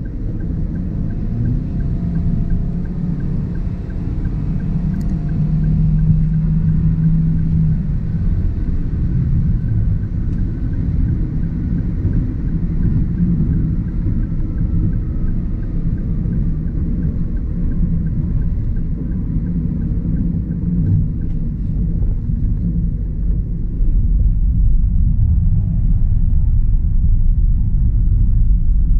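Inside the cabin of a 2023 Toyota Avanza 1.3 CVT cruising on the highway: a steady low rumble of road, tyre and engine noise that grows a little louder near the end.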